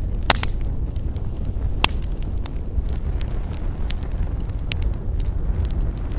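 Wood campfire burning, crackling with many irregular sharp pops over a steady low rumble; the loudest pops come just after the start and about two seconds in.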